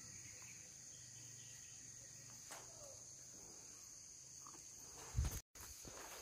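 Faint, steady high-pitched drone of insects in tropical forest. About five seconds in there is a brief low thump, and right after it the sound cuts out for a moment.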